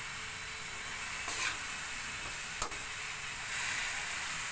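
Beef slices sizzling in a hot wok while a metal spatula stirs them, with a scrape about a second and a half in and a sharp knock of the spatula on the pan shortly after.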